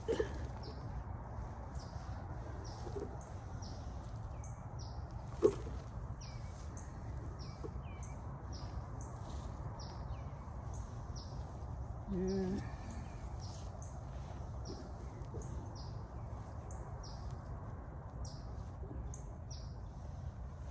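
A small bird chirping over and over in short, high notes about twice a second, over a steady low outdoor rumble. A single sharp knock sounds about five seconds in.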